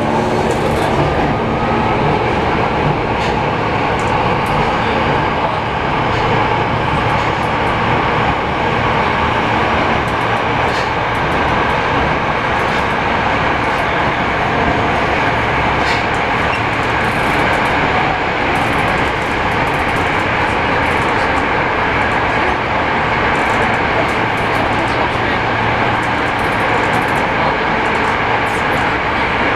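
Yokohama Municipal Subway 3000S train heard from inside the car: the Mitsubishi IGBT-VVVF inverter's whine rising in pitch for the first second or two as the train accelerates, then a steady running rumble of wheels on rail with occasional light clicks.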